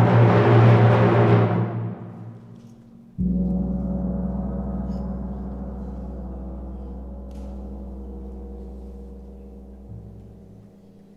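Symphony orchestra: a loud full swell breaks off about two seconds in, then a tam-tam is struck once about three seconds in and rings with a long, slow fade over low sustained tones.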